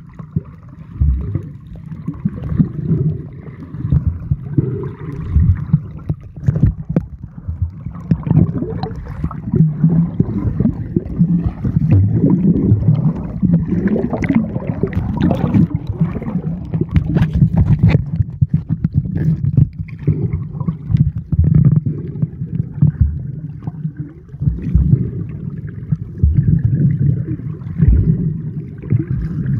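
Underwater sound picked up by a submerged camera: a muffled, surging low rumble of water moving around it, with scattered small clicks and crackles.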